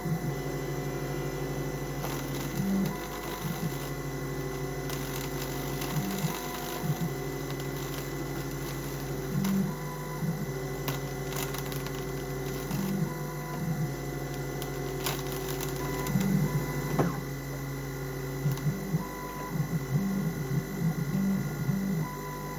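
Rownd desktop CNC machine cutting aluminium: a steady spindle whine with the axis motors' tones shifting in pitch every second or so as the tool moves, and a few sharp ticks.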